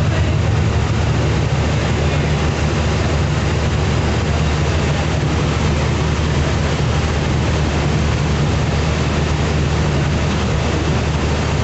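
Diesel locomotive engine running with a steady low hum as a passenger train pulls slowly into the station.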